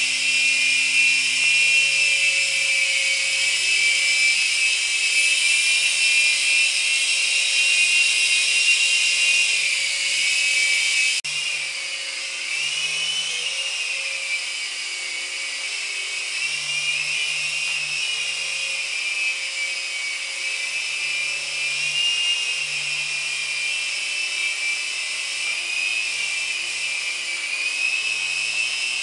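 Small electric RC helicopter flying: a steady high-pitched whine from its electric motors and rotors, its pitch wavering as the throttle changes. It becomes quieter about eleven seconds in.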